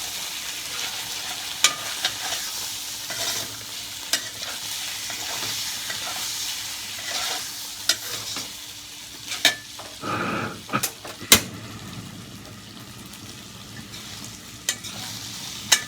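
Garlic and sweet turnip stir-frying in oil in a pan, sizzling steadily, with a spatula clacking against the pan every couple of seconds and a brief duller scrape about ten seconds in.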